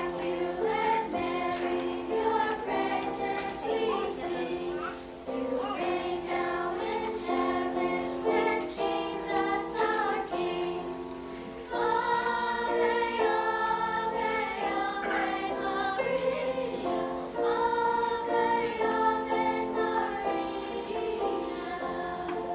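Children's choir singing with piano accompaniment; a new, louder and higher phrase begins a little before halfway.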